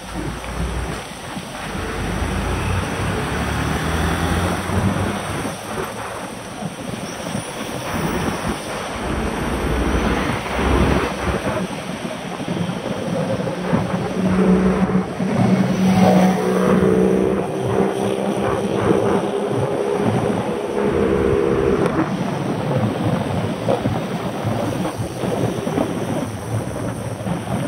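Wind buffeting the microphone of a camera on a moving bicycle, with the noise of car traffic alongside. A steady hum from a motor vehicle comes in about halfway through and fades out later on.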